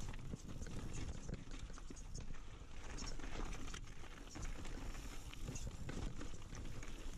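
Mountain bike clattering down a rocky trail: tyres knocking over stones and the bike rattling in quick, irregular knocks, over a steady low wind rumble on the microphone.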